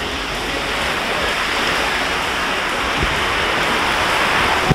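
Steady hiss of sea surf washing onto a sandy beach, slowly growing a little louder and cut off abruptly at the end.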